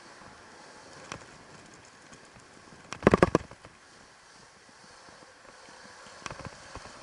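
Electric dirt bike rattling and knocking over bumps on a dirt track: a quick cluster of sharp knocks about three seconds in, with a few lighter single clunks around a second in and near the end, over a low steady hiss.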